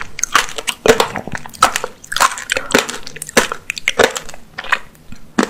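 Close-miked chewing of apricot tanghulu, the candied sugar shell crunching between the teeth in irregular crunches about every half second.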